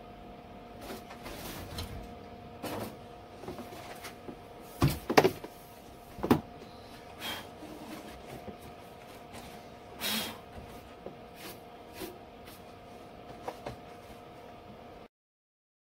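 Scattered knocks and clicks from a MIG welding gun and welding helmet being handled over a car's sheet-metal trunk floor, over a steady hum. The loudest knocks come about five seconds in, with a short burst of noise about ten seconds in. All sound cuts off abruptly near the end.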